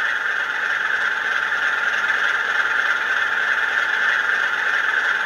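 Model Class 47 diesel locomotive standing with a steady engine-idle sound, a thin even hum through a small speaker with no deep bass.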